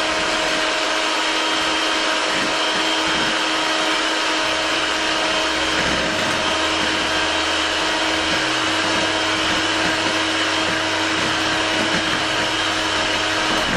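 Electric hand mixer running steadily at one speed, its beaters whisking thin crepe batter in a bowl: a constant motor whine.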